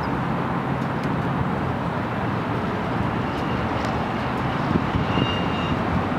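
Freight train boxcars rolling past: a steady rumble and rattle of steel wheels on rail, with a few faint clicks and a thin high squeal coming and going near the end.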